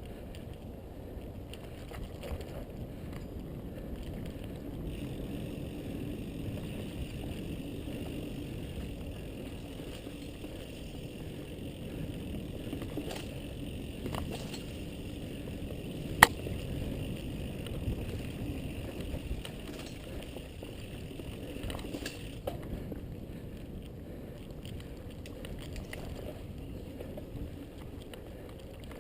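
Mountain bike being ridden along a trail: a steady rumble of tyres and rattling of the bike, with scattered clicks and one sharp snap about sixteen seconds in.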